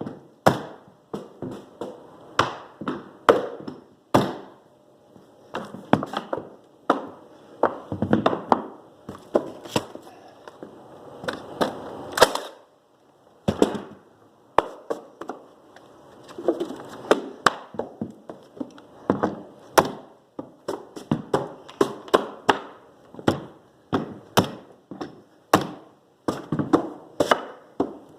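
Mallet blows on a manual flooring nailer driving fasteners through hardwood flooring boards: sharp wooden knocks in quick runs of several strikes, with short pauses between boards.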